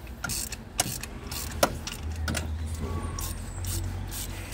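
Hand tools clicking and knocking on metal in a car's engine bay as parts are taken off to get at the spark plugs, with a steady low hum from about two seconds in.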